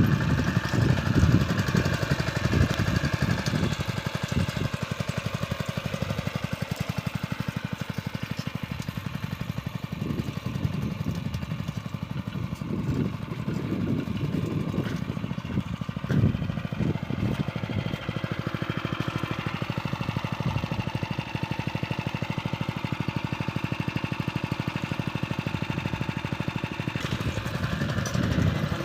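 Small engine of a farm cultivating machine running steadily, its low note swelling and easing unevenly.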